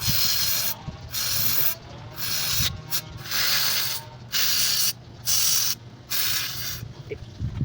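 About seven short bursts of harsh noise, each under a second with sharp starts and stops, as dirt is cleaned out of an engine part, over a steady low hum.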